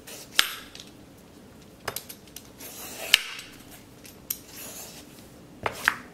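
Vegetable peeler stripping the skin off a firm green papaya: scraping strokes across the skin, with about five sharp clicks spread through.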